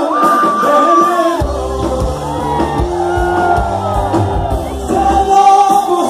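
Live rock band playing over a PA system, with a lead voice singing long held notes over guitars and percussion. The bass and drums drop away at first and come back in about a second and a half in.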